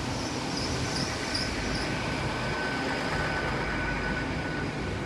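A Great Western Railway Intercity Express Train (IET) pulling into the platform: a steady rumble of running train noise, with a thin high squeal through the middle.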